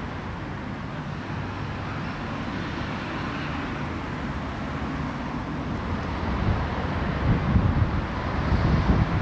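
Outdoor street ambience: a steady hum of distant traffic, with wind buffeting the microphone in irregular low gusts that grow stronger over the second half.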